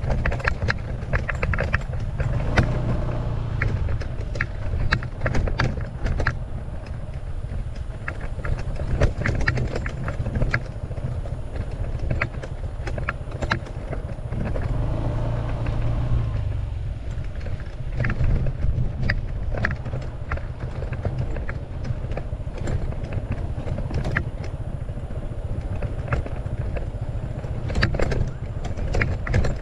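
Honda ADV150 scooter riding over a rough dirt track: a steady low rumble of its single-cylinder engine and the ride, with frequent short knocks and rattles as it goes over the bumps.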